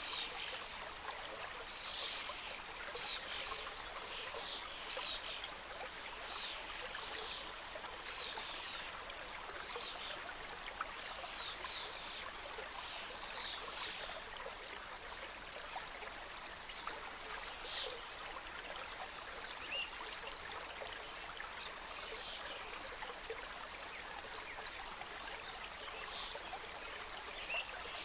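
Mountain forest stream flowing over rocks: a steady rush of water, with many short high-pitched sounds over it, thickest in the first half.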